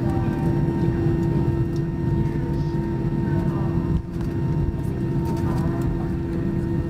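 Airbus A320 cabin noise while taxiing: the jet engines at idle give a steady rumble with a constant humming tone. A brief dip in level comes about four seconds in.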